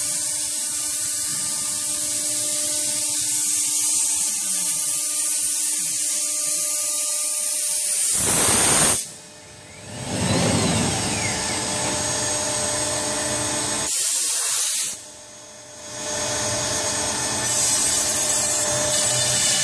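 CNC router spindle running as its end mill cuts a groove in pink foam board: a steady motor whine with hiss. The sound drops out briefly twice, about nine and fifteen seconds in.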